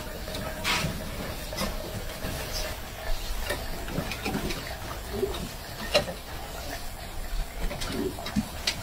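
Puppies scrabbling up a small wooden ladder and table, their paws knocking on the wood several times, the loudest knock about six seconds in. A few short puppy whimpers come in around the middle and near the end.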